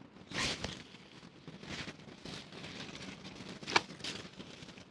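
Fabric sail of a Boston Big Game fishing kite rustling and crackling as it is handled and spread out on the sand, with one sharp click near the end.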